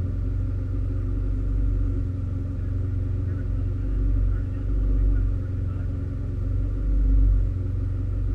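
Mitsubishi Lancer Evolution X race car's turbocharged four-cylinder engine idling, a steady low rumble heard from inside the cabin, swelling slightly a few times.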